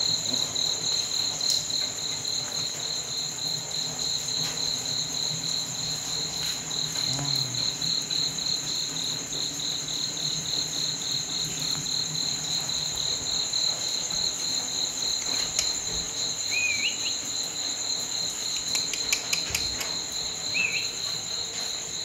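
Crickets chirping: a steady, rapid pulsing chirp, about four to five pulses a second, over a higher continuous trill. Two short rising chirps come in past the middle and again near the end.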